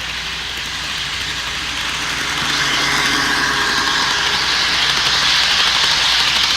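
HO scale Bachmann F40PH model locomotive and passenger cars running at full throttle: a motor whir and the rattle of wheels on the track, growing louder from about two seconds in as the train comes close and easing off near the end.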